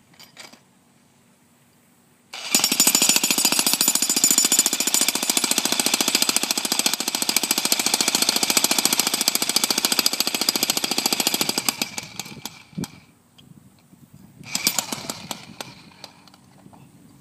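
Jackhammer hammering in one long burst of about ten seconds, starting a couple of seconds in and trailing off, then a second short burst of about a second near the end.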